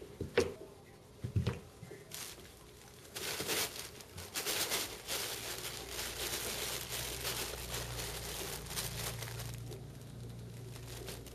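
Crinkle tunnel crackling and rustling as cats scramble in and against it, the crinkle steady from about three seconds in and fading near the end. Two sharp thumps come first, in the opening two seconds.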